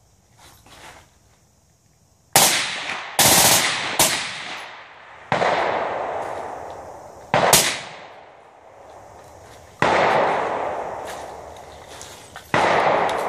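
Seven rifle shots from a suppressed 10.5-inch 5.56 AR-pattern carbine, fired singly at an irregular pace, the first three about a second apart. Each crack is followed by a long rolling echo.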